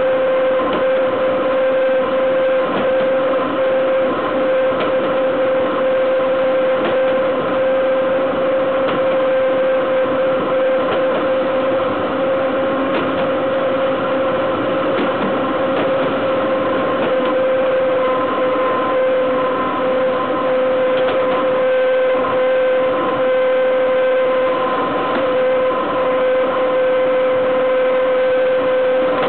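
Running noise of BDZ Cargo class 43 electric locomotive's wheels and bogie rolling on the rail at speed: a steady rumble with a steady high-pitched whine over it, and a few faint knocks.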